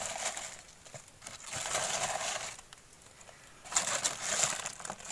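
Packing peanuts rustling as handfuls are scooped out of a cardboard box, in three bursts about a second long each.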